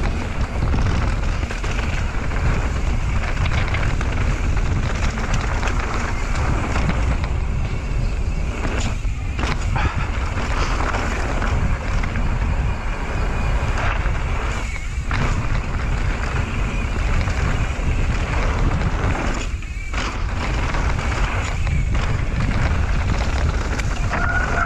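Wind rushing over the microphone and mountain bike tyres rumbling over a dirt and gravel trail at riding speed, a steady loud rush with a few brief dips.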